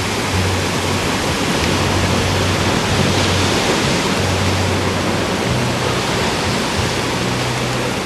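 Sea surf breaking and washing over rocks, a steady rushing noise, with a low hum coming and going underneath.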